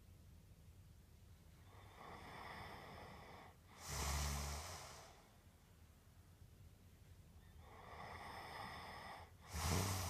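A person's heavy, snore-like breathing: twice, a long drawn-in breath is followed by a louder, shorter rough snort with a low rumble, in a slow, even rhythm.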